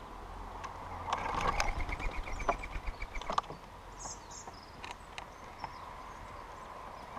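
Birds at a bird table: a cluster of sharp pecking taps and clicks with a short rapid trill about a second in, then a few high chirps around four seconds in.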